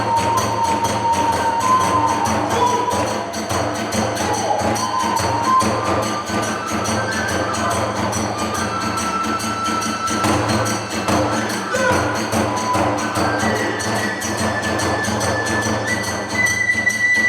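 Kagura hayashi music: a bamboo flute plays held notes that climb step by step, over a fast, driving beat of drums and small hand cymbals.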